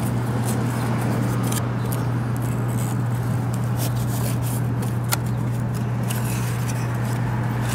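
Cardboard rustling and light clicks as a headlight bulb box is opened and the bulb in its cardboard insert is slid out, over a steady low hum.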